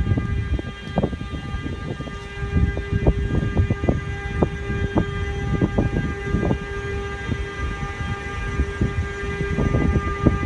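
Bombardier Traxx class 186 electric locomotive giving a steady electric whine made of several held tones at once, with irregular metallic knocks and clanks throughout.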